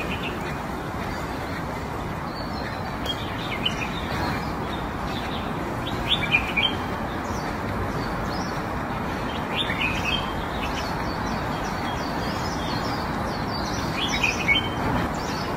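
Small birds chirping in short spells every few seconds over a steady background hiss.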